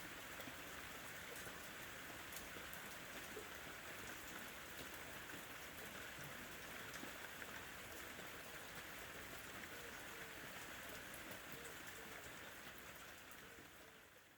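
Steady rain falling, with many small drops pattering, fading out near the end.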